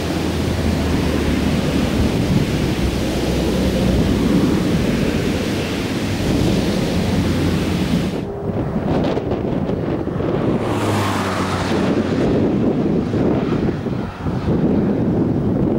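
Wind buffeting the microphone: a loud, steady rushing rumble, heaviest in the low range, that changes character about eight seconds in.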